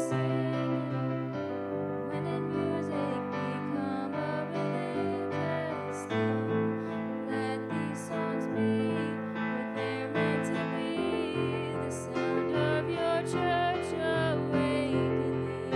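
A live worship song: a woman singing into a microphone over held keyboard chords that change every second or two. Her voice wavers with vibrato on the held notes near the end.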